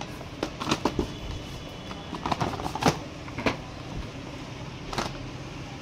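Packaged date boxes being handled in a cardboard carton: scattered light knocks and rustles of cardboard and plastic wrap, a cluster of them a little after two seconds in, over a steady hum.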